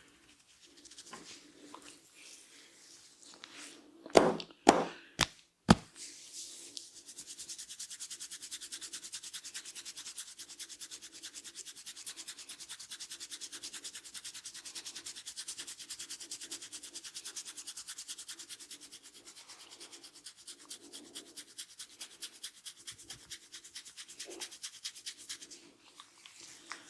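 Four sharp smacks in quick succession, then hands rubbing fast through hair and over the scalp in a head massage, a brisk even scrubbing rhythm whose strokes spread out near the end.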